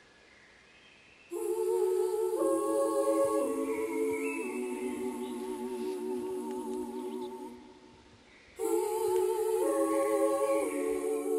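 Wordless voices humming sustained notes in harmony, with vibrato, the chord shifting to new pitches every second or so. A phrase begins after a near-silent second, fades out past the middle, and a new one starts near the end.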